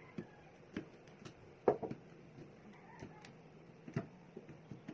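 Small irregular clicks and taps of a screwdriver turning a terminal screw on a magnetic contactor as a wire is clamped in, with one louder click about a second and a half in.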